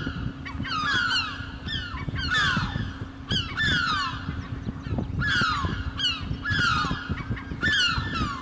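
Birds calling again and again, one to two cries a second, each cry falling in pitch, several overlapping, over a steady low hum.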